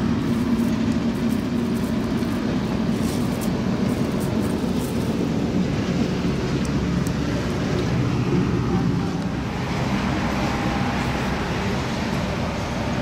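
An engine running steadily, a continuous low hum.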